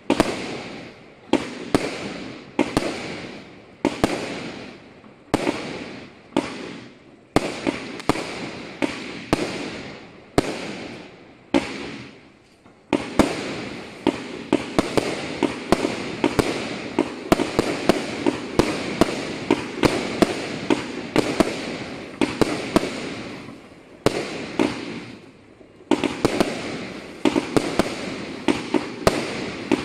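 Gemstone Fireworks Destroyer, an 80-shot 25 mm multi-shot barrage cake, firing its shells into the air. At first they come as sharp bangs about once a second, each fading away before the next. After a short lull about halfway through comes rapid, dense firing with bangs several times a second.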